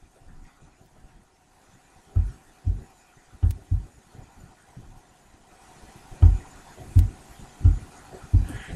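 A series of about eight low, dull thumps in loose pairs, with quiet gaps between them.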